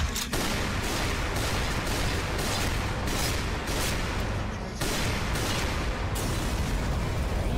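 Sound effects of dense rapid gunfire and explosions from an animated battle scene.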